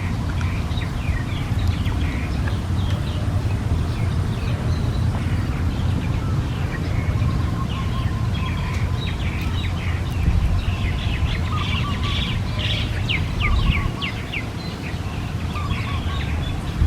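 Small birds chirping repeatedly in short high calls, with a quick run of rapid chirps a little past the middle, over a steady low rumble.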